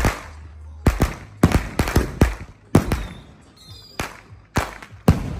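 Firework going off in a series of sharp bangs, irregularly spaced at one to three a second.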